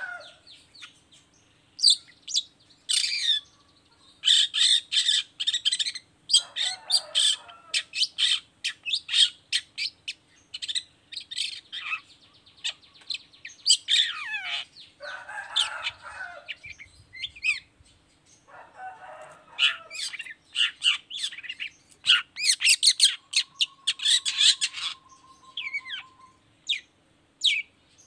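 Long-tailed shrike (cendet) singing a loud, varied song. It mixes harsh rasping bursts with fast runs of clicks and sharp chirps, and holds a short steady whistle toward the end.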